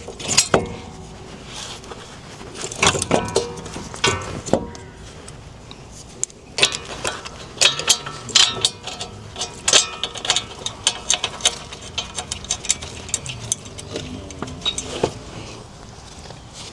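Irregular metallic clinks and clanks of hand tools and metal parts being handled during wheel hub and brake reassembly, with several louder knocks among many light clicks.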